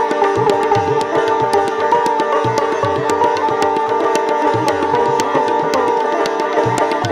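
Sitar and tabla playing Hindustani classical music together. The sitar's plucked notes ring over its shimmering sympathetic strings, and the tabla keeps a steady pulse of deep strokes under quick sharp ones.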